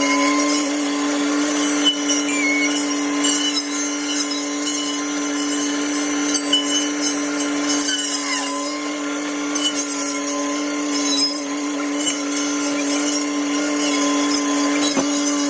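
Tractor-mounted hedgecutter circular saw and the tractor engine running at a steady hum, with scattered brief crackles and snaps as branches are cut.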